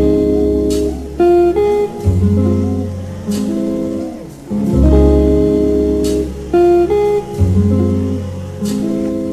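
Background music led by a strummed acoustic guitar over a steady bass line.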